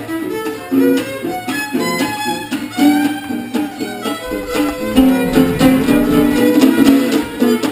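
Acoustic jam music: a violin playing a lively melody over guitar accompaniment.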